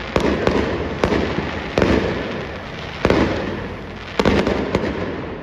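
Aerial fireworks exploding overhead: a run of sharp bangs at uneven intervals, each trailing off in a fading rumble, with a quick double bang a little past four seconds in.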